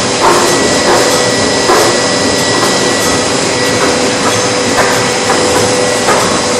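Plastic extruder line running: a steady machine drone with a few steady whining tones, and a short knock repeating about every two-thirds of a second.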